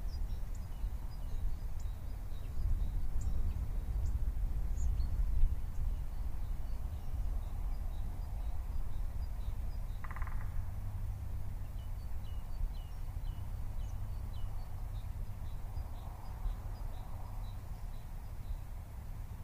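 Wind rumbling on the microphone, with many short, high bird chirps scattered throughout and a single louder call about halfway through.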